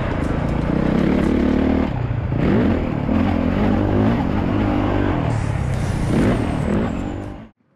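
Motocross bike engine at full race pace, its pitch climbing and dropping again and again as the rider opens and shuts the throttle and shifts. It is heard from a helmet-mounted camera, and it cuts off suddenly just before the end.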